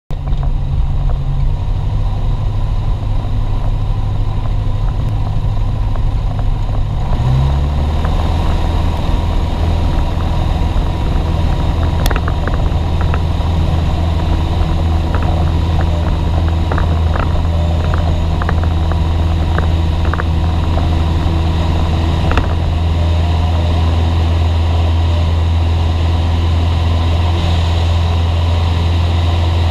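Jodel DR1050 light aircraft's piston engine and propeller running steadily at take-off power, heard from the cockpit through the ground roll and lift-off. The engine's low drone steps down in pitch about seven seconds in, and light knocks and rattles come and go between about twelve and twenty-two seconds in.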